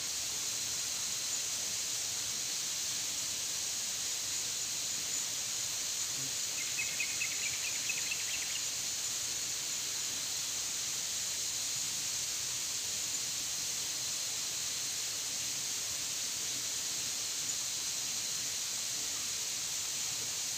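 Steady high-pitched hiss of an insect chorus in tropical streamside vegetation, with a short run of quick chirping ticks about seven seconds in.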